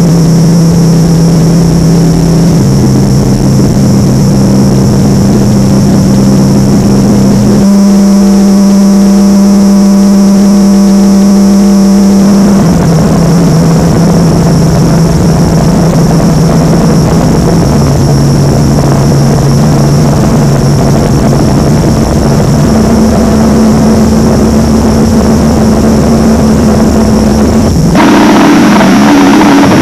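Mock emergency alert system alarm: loud, distorted electronic drone of low steady tones that jump to a new pitch every few seconds, over a constant high whine. About eight seconds in, a harsher buzzing tone takes over for about five seconds, and near the end the sound changes abruptly.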